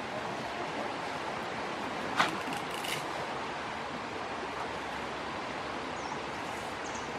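Steady rushing outdoor background noise, like a stream or wind, with one sharp crack about two seconds in and a fainter crackle just before three seconds.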